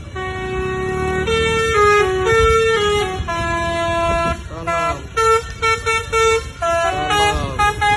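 Roof-mounted basuri musical bus horn playing a tune: a run of held notes stepping up and down in pitch, breaking into short repeated notes about halfway through, with a couple of wavering slides in pitch.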